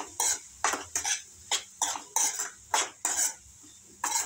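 Metal spoon stirring and scraping green peas and masala around an aluminium kadai: a string of quick scrapes against the pan, about two or three a second.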